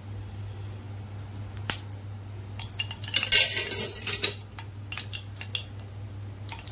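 Metal spoon clinking against a nonstick kadhai: one click nearly two seconds in, then a cluster of clinks and clatter around the middle, the loudest part, and a few scattered clicks after, over a steady low hum.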